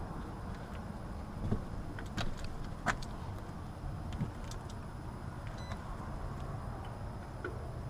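A few sharp clicks and taps of meter test leads being fitted to a dual run capacitor's terminals, over a steady low rumble in the background.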